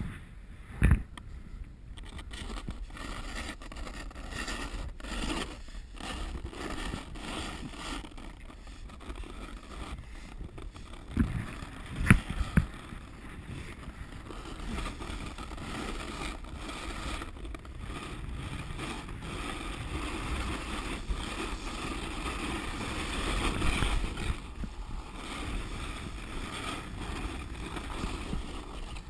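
Snowboard sliding and scraping down hard, crusted snow, with wind rushing over the camera microphone; a few sharp knocks about a second in and again around eleven to twelve seconds in.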